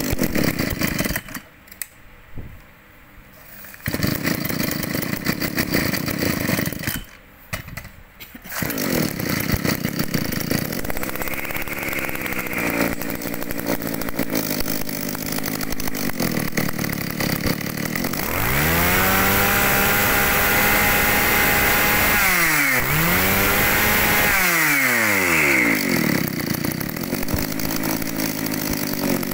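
Mitsubishi TL261 brush cutter's small two-stroke engine running, cutting out briefly twice in the first eight seconds and then running steadily. About two-thirds of the way in it is revved up high, drops, is revved again and falls back to a lower steady idle.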